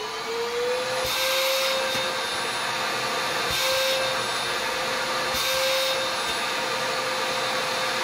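Raven EOR001 100 W cordless stick vacuum running in turbo mode: its motor whine rises as it spins up and then holds steady. Three times, a louder rushing hiss of air comes as toilet paper is held over the open end of the tube.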